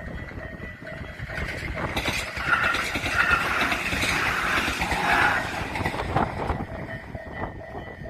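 An Isesaki-type electronic level-crossing bell rings as a steady two-tone chime. From about two seconds in to about six and a half seconds, a Tobu Isesaki Line train passes over the crossing, and its running noise drowns out the bell before it returns.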